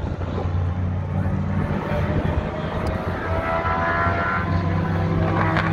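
Race car and tow truck engines running at low speed, a steady low drone with an engine's pitch rising slightly about three seconds in.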